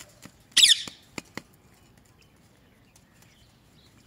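A parrot gives one short, harsh, high-pitched screech about half a second in, followed by two sharp clicks.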